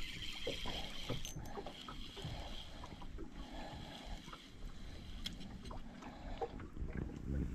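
Wind buffeting the microphone and river water lapping against a small boat's hull, with scattered light clicks from a spinning reel being cranked to wind in the line.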